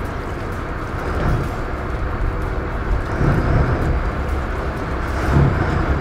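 Twin Volvo Penta IPS 650 diesel engines of a fishing yacht idling at the dock: a steady low sound, with a few brief louder low bumps.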